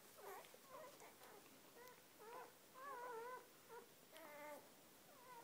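Faint squeaks and whimpers of four-day-old golden retriever puppies: a string of short high cries, with a longer wavering one about three seconds in.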